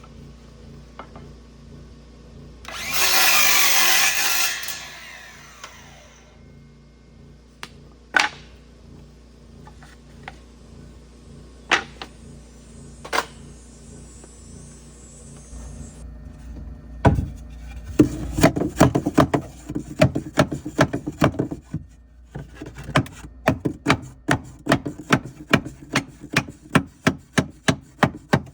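Woodworking with hand tools: a short loud rasping burst about three seconds in, a few single knocks, then a long run of rhythmic strokes on wood, about two a second, in the second half.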